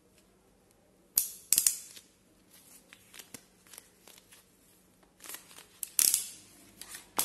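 Hand crimping pliers clicking and snapping as faston-type terminals are crimped onto wires. Sharp snaps come about a second in, again at a second and a half, and near six seconds, with lighter clicks in between.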